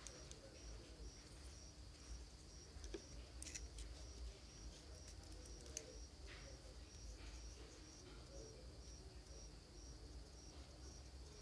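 Near silence: room tone with a low hum and a cricket chirping steadily, a short high chirp about two or three times a second, plus a few faint clicks.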